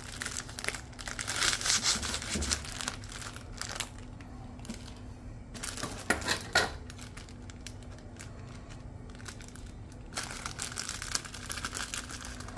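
Thin plastic packaging of a pack of enoki mushrooms crinkling and tearing as it is cut open with a chef's knife and handled, with a few sharp crackles about six seconds in and a steadier rustle near the end.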